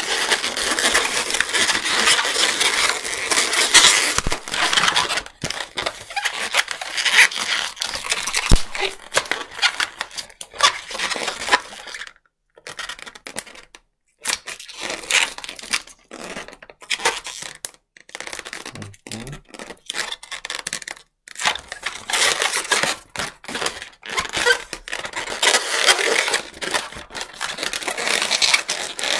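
Long latex modelling balloon (260Q) rubbing and crackling against itself and the hands as it is twisted and locked into a balloon animal. The sound comes and goes, with a few short quiet gaps around the middle.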